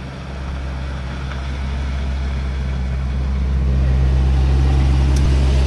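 Vehicle engine idling with a steady low hum, growing gradually louder over the first few seconds.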